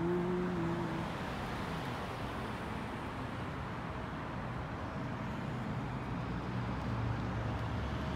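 Street traffic: a steady rush of cars on the road, with a low engine rumble building in the later seconds. A held sung note ends about a second in.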